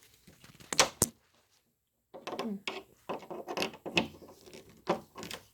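Master Lock Night Watch deadbolt being worked by hand: two sharp clicks about a second in, then a run of scraping and clicking from the lock mechanism. The bolt moves stiffly, which the installer puts down to the lock needing oil or to pressure points inside it.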